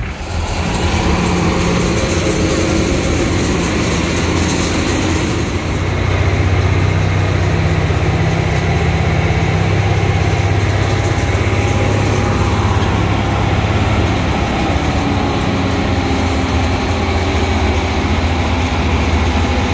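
Diesel locomotive engine running steadily under load as the train travels, with the rumble of wheels on the track; it grows a little louder about six seconds in.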